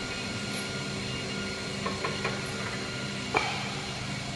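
Automated small-bottle filling, sealing and capping machine running with a steady hum made up of several held tones. A few light clicks come around the two-second mark, and a sharper click follows about three and a half seconds in.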